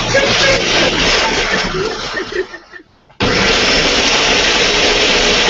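Countertop blender running loud, grinding nuts and spices into a paste. It cuts out about two and a half seconds in and starts again under a second later.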